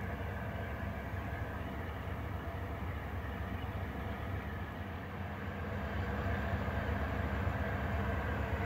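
Diesel locomotives of a CN freight train heard at a distance as they approach: a low steady engine rumble with a few held tones, growing a little louder about six seconds in.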